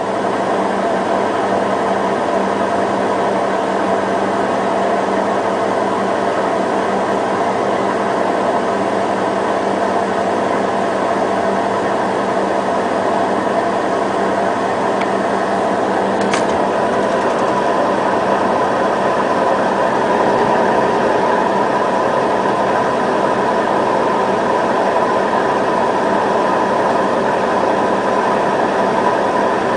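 Electrolux washing machine in its spin cycle: a steady, loud motor-and-drum whine with a hum beneath. About halfway through there is a brief click, and the higher whine grows stronger as the low hum fades.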